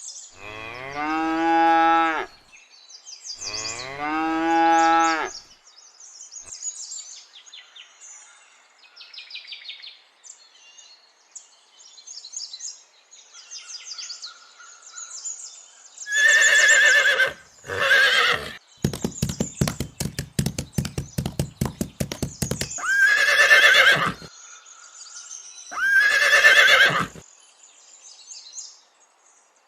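Farm animal calls: two long pitched calls near the start, then four louder, harsher calls in the second half with a burst of rapid rattling pulses between them, over faint bird chirps.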